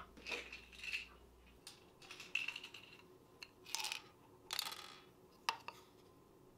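Red tablets shaken out of a plastic pill bottle, rattling inside it and clicking as they drop onto a hard surface, in about five separate bursts ending with a single sharp click.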